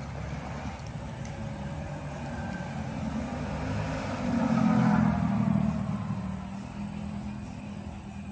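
A motor vehicle passing close by, its engine and road noise swelling to a peak about halfway through and then fading away, over a steady background rumble of traffic.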